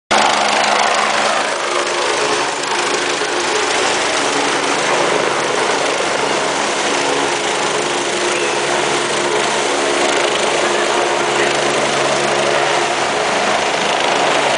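Helicopter flying low and close, its turbine engine and rotor making a steady, loud noise.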